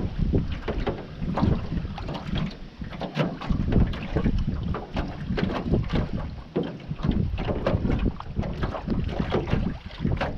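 Wind buffeting the microphone in uneven gusts, with water slapping against a small boat's hull and many short knocks and splashes.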